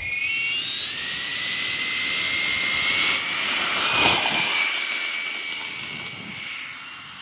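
Radio-controlled A-10 Warthog model jet on its take-off run, its twin engine pods whining. The high whine rises in pitch over the first couple of seconds, is loudest about four seconds in as the model passes, then fades as it moves away.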